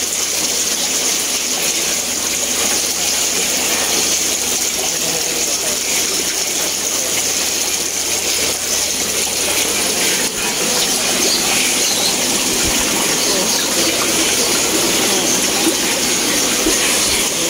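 Steady rushing and bubbling of water in aquarium tanks, from air stones and filter outflows running. A low hum under it drops away about ten seconds in.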